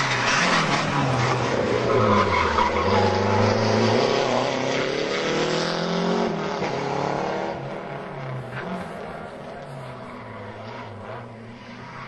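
Rally car engine revving hard through a hairpin: the revs drop as it slows for the bend, then climb as it accelerates out. It fades as the car pulls away.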